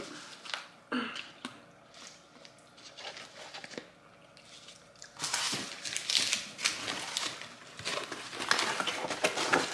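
Crunching and crinkling while eating battered fried chicken wings from takeout packaging: scattered clicks at first, then dense crackling from about five seconds in.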